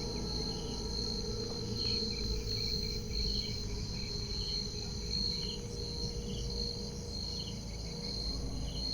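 Crickets trilling: a steady high-pitched pulsing trill with shorter chirps repeating about every half second, over a low rumble.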